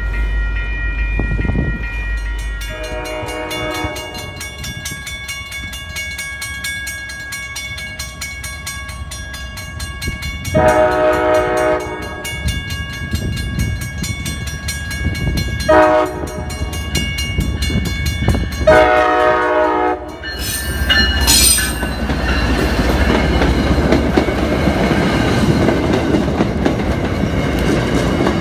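Commuter train locomotive horn sounding the grade-crossing signal of two long blasts, a short one and a final long one, over the rapid clanging of the crossing-signal bell. The MBTA commuter train then passes over the crossing, rumbling and clattering on the rails.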